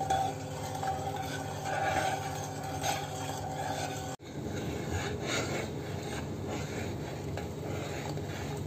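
A long metal spoon stirring and scraping around a stainless steel pot of vinegar pickling brine, over a steady hum. After a sudden cut a little before halfway, the brine is bubbling at a boil with the spoon in it.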